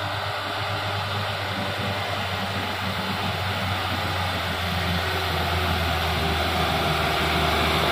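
Toyota Dyna light truck's engine running steadily as it climbs a muddy slope, a low hum that grows slowly louder as the truck approaches.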